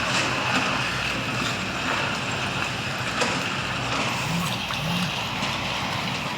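Heavy diesel machinery of a 360 excavator loading a screener, running steadily with a high whine over the engine. Scattered knocks sound throughout, and the engine pitch briefly rises and falls twice about four and five seconds in.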